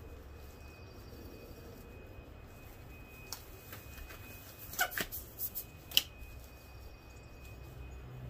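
Disposable gloves being pulled onto the hands, with a handful of short sharp snaps about three to six seconds in, the last the loudest, over a low steady rumble.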